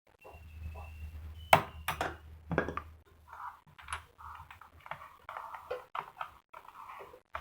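Diesel engine valve being lapped into its seat: sharp metal clinks, then a run of short gritty scraping strokes of valve face against seat.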